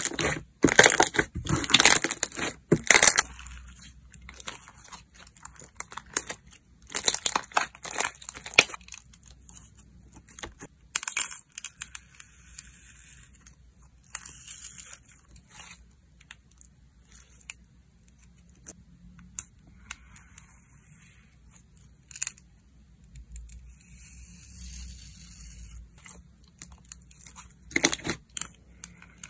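Glossy clear red slime being squeezed, folded and pressed by hand, crackling and popping as air pockets burst. It is loudest in the first three seconds, again around seven to nine seconds and near the end, with quieter squishing in between.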